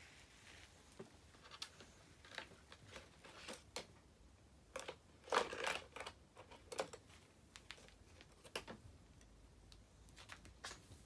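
Irregular clicks and clatter of small hard art supplies knocked about in a plastic bucket as a toddler's hands rummage through it, with a louder burst of knocks about five seconds in.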